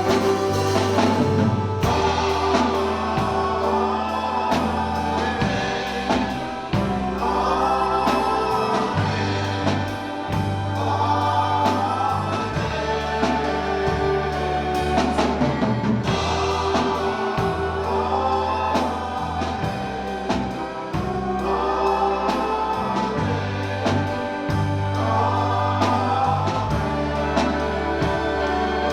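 Church worship band and singers performing a slow contemporary worship song, with sung phrases over held bass notes that change every few seconds.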